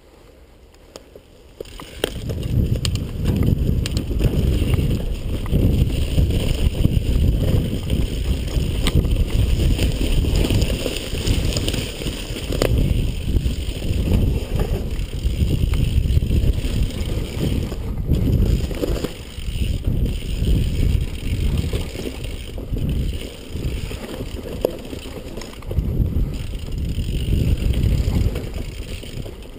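Mountain bike riding fast down a dirt singletrack: a loud, continuous rumble of wind buffeting the microphone and the bike rattling over the ground, with occasional sharp knocks. It starts about two seconds in, after a quieter moment when the bike is still.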